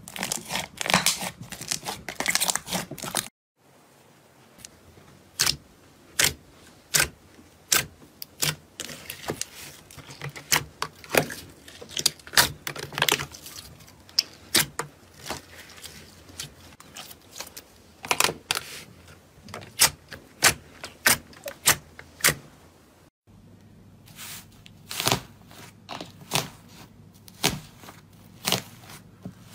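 Hands kneading and pressing slime. First comes a dense crackling squish. Then a long run of sharp separate pops and clicks, several a second, as trapped air bursts out of a glossy slime pressed flat. Near the end, after a change of slime, come more pops.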